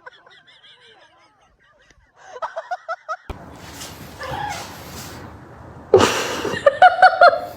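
Animal calls: runs of short pitched calls repeated about five times a second, one about two seconds in and a louder one near the end, over a noisy background.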